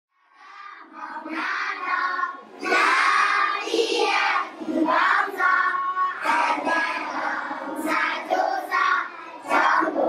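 A class of young children singing together in unison, loud and a little ragged, fading in over the first second.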